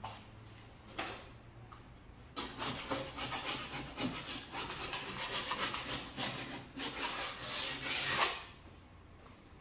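A hand tool sawing and rasping the cut edge of a hole in drywall: a couple of short knocks, then from about two seconds in a fast run of rough scraping strokes that stops shortly before the end.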